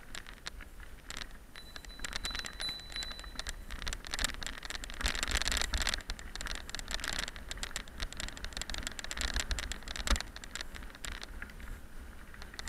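Bicycle riding over a loose gravel track: tyres crunching on stones and the bike rattling over the bumps, with wind rumbling on the microphone.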